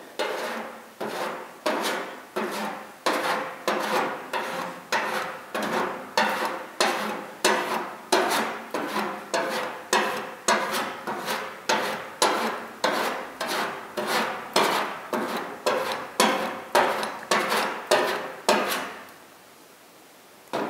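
Grater-style body file shaving cooled lead body solder on a steel car roof, in repeated rasping strokes about two a second that stop near the end.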